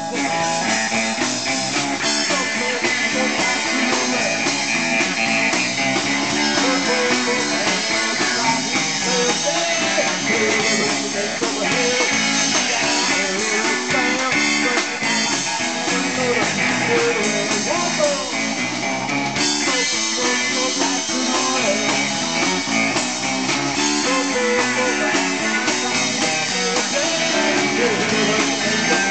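Live rock band playing a song on electric guitar, bass guitar and drum kit.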